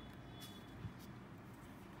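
A few faint, short scratches of an extra-fine fountain pen nib on sketchbook paper, with one soft knock just under a second in, over a steady low background hum.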